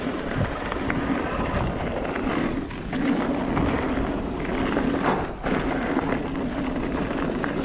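Yeti 160e electric mountain bike riding fast down a dirt forest singletrack, heard from a camera on the rider: steady wind rush on the microphone and tyre noise on the trail. Scattered clicks and rattles come from the bike, with a sharper knock about five seconds in.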